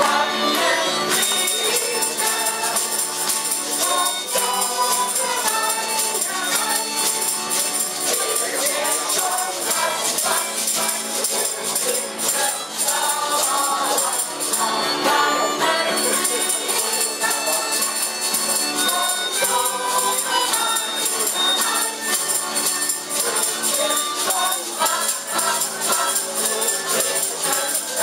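A small group singing a folk song in unison to several strummed acoustic guitars, with a tube shaker keeping a steady beat.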